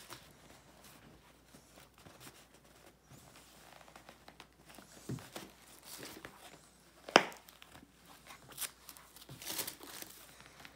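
Wrapping being crinkled and pulled off a wallet, with scattered soft rustles and small clicks, and one sharp click about seven seconds in.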